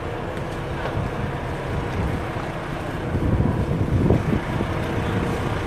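Wind buffeting the microphone over a low steady rumble, with stronger gusts a little past the middle.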